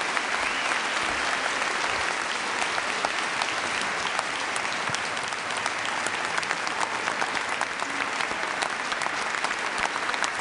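Large audience applauding steadily, a dense mass of hand claps.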